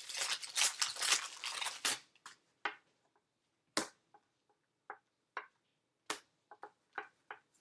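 Foil trading-card pack wrapper crinkling and tearing open for about two seconds, then scattered soft clicks of baseball cards being slid and flicked through a stack.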